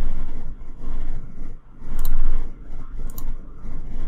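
Two sharp computer-mouse clicks, about two and three seconds in, over a steady low hum and rumbling background noise that swells and fades.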